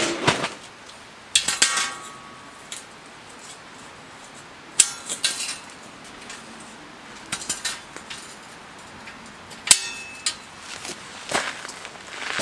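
Metal camping gear being handled: a series of separate clinks and clanks, a few of them ringing briefly.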